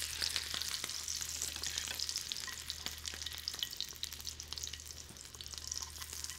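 Foie gras searing in a hot pan in its own rendered fat: a dense sizzling crackle with many small pops and spits, easing a little in the second half.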